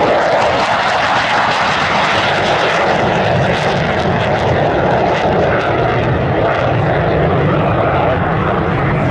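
Jet noise from a USAF F-15C Eagle's twin Pratt & Whitney turbofan engines, loud and steady, with a deeper rumble building in from about three seconds in.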